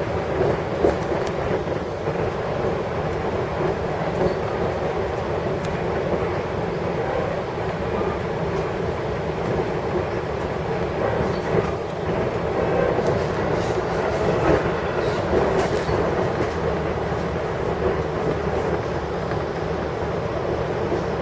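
Long Island Rail Road train running at speed, heard from inside a passenger car: a steady rumble and rail noise with occasional sharper clicks from the wheels on the track.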